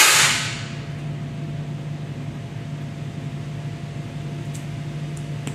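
Homemade 4-inch PVC compressed-air cannon firing: a single sharp bang right at the start, followed by a rush of air that fades over about half a second. A steady low hum follows, with a few faint ticks near the end.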